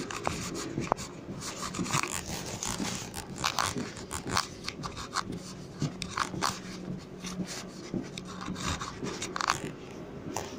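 Footsteps and rustling scrapes of someone walking along the aisle inside a Helsinki metro M200 train car, irregular clicks over a steady low hum in the carriage.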